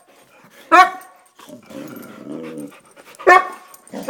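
Boxer dog barking in excited play: two loud, sharp barks about two and a half seconds apart, with a lower, drawn-out growl between them.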